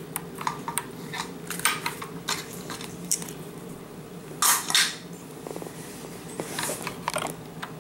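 Light metallic clicks and clinks of the steel AK pistol and small tools being handled on a hard surface, with two louder scraping sounds about four and a half seconds in.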